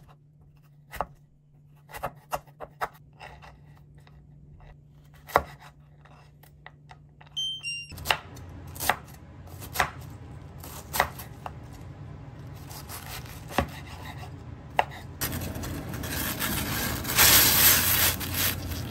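Chef's knife slicing carrots and then cabbage on a cutting board, a dozen separate irregular chops. Near the end comes the dense hiss and bubbling of a pot of water boiling hard with udon noodles in it.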